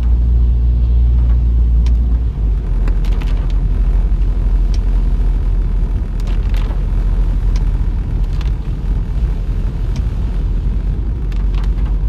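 Car driving in heavy rain, heard from inside: a steady low rumble of engine and road noise, with a handful of faint, scattered ticks.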